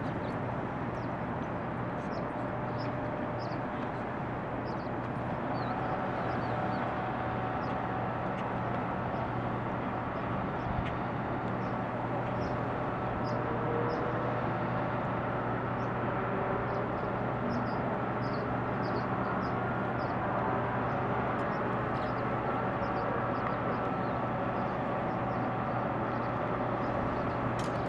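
Steady rushing of river water below a hydroelectric dam, with a constant low hum under it and short high chirps repeating throughout.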